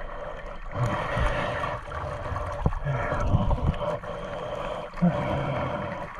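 Sea water splashing and gurgling around a diver who holds a life ring and is towed through the surface on a line from a boat.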